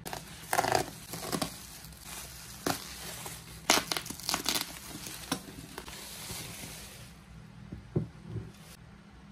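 Plastic bubble wrap crinkling and crackling irregularly as it is handled and pulled off new ceramic dishes, with a few louder crackles. Near the end there are a couple of soft knocks.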